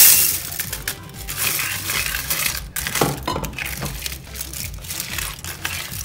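Dry wide egg noodles pouring and rattling from a glass bowl into a skillet of sauce, loudest right at the start, then a spoon stirring them in with repeated scrapes and clicks against the pan.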